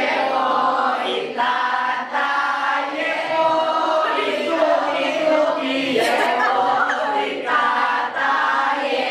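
A group of young people singing an action song together in unison, a chant-like tune in short phrases of a second or two with brief breaks between them.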